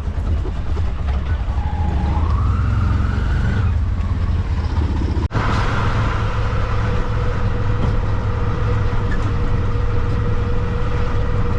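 Auto-rickshaw (tuk-tuk) riding along with its engine running and heavy wind rumble on the microphone. Its engine whine rises as it picks up speed about two seconds in. After a brief dropout about five seconds in, it settles into a steady whine.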